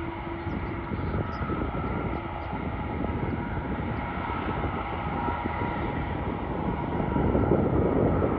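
Boeing 747-412F freighter's four turbofan engines running at taxi power: a steady rumble with a thin whine, growing louder near the end.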